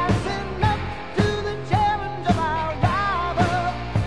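Background pop-rock song with a singing voice over a steady drum beat of about two beats a second.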